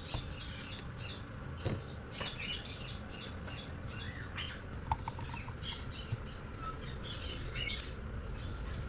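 Small birds chirping and twittering in the background throughout, with a few light clicks, about two and five seconds in, as a watch bezel is fitted onto its case.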